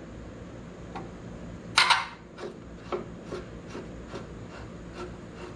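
Screws being backed out of a Jeep Cherokee's headlight retaining ring with a hand tool. A loud scrape comes about two seconds in, then a run of light, evenly spaced clicks, about two to three a second.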